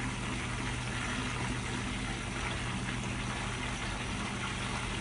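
Mutton koftas sizzling steadily as they deep-fry in hot oil, over a steady low hum.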